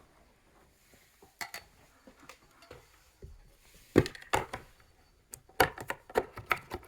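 Sharp knocks and clicks of a plastic smoke detector base bumping against the routed wooden surround it is too big to fit into. There is a single knock early, the loudest knock in the middle, and a quick run of clicks near the end.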